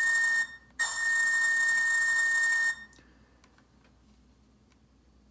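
Caboose air whistle played from the speaker of an HO scale Athearn Genesis caboose's Tsunami 2 sound decoder: a steady high whistle breaks off briefly about half a second in, then sounds again for about two seconds and stops.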